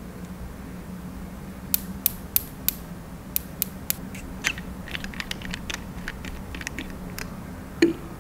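A series of sharp clicks and taps over a low steady hum: a few evenly spaced clicks at first, then many smaller, quicker ones, with one louder knock near the end.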